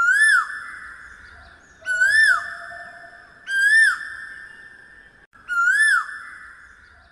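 Intro jingle: a high pitched note that swoops up and back down, sounded four times about every two seconds, each one starting sharply and fading out slowly.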